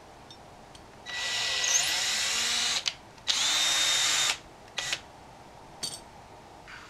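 Cordless drill spinning a thread tap to chase solder out of the threads of tinned heatsink mounting nuts, running in two bursts of about a second and a half and then a second, with a steady high whine. A couple of small clicks follow near the end.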